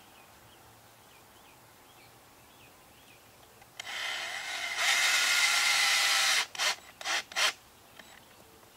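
Cordless drill driving a screw into the motorhome's metal sidewall to mount a door-holder clip: the motor starts about four seconds in, runs steadily under load for about two seconds, then gives three short trigger bursts as the screw is seated.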